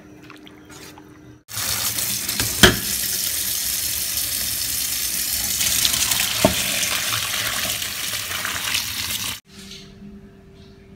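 Hot pasta water and spaghetti poured from a steel pot into a plastic colander in a sink: a loud, steady rushing splash that starts suddenly and cuts off after about eight seconds, with two sharp knocks during the pour.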